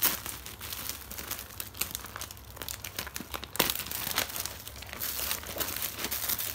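Black plastic courier mailer bag crinkling and tearing as it is ripped open by hand: an irregular run of crackles and rips.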